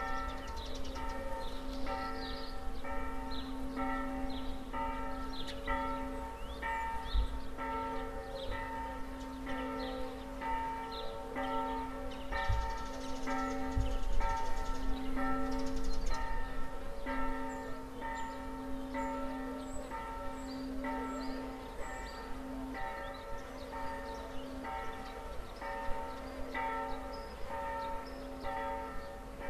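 Church bell swung by an electric motor, struck steadily about three times every two seconds, its hum carrying on between strikes.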